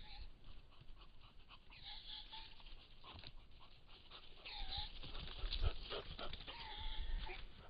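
Roe deer in the rut during a chase: several short piping calls that bend in pitch, with panting. Hooves and rustling in the undergrowth go with it, loudest a little past the middle as a deer runs close by.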